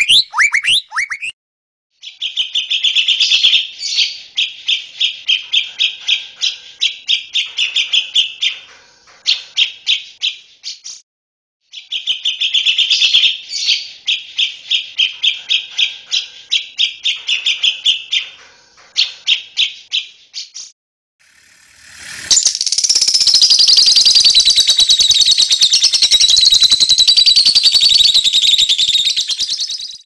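Recorded birdsong of several species in turn. The tail of a white-rumped shama's varied, gliding song ends about a second in. A grey-cheeked bulbul's song of fast repeated notes then plays twice over. In the last third, lovebirds chatter loudly and shrilly without a break.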